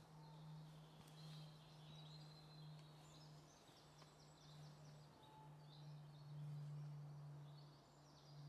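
Faint woodland songbirds singing, a run of quick trills and chirps, over a steady low hum.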